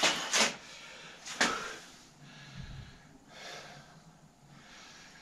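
A few sharp knocks and clatters of workshop handling, three in the first second and a half, then quieter handling noise.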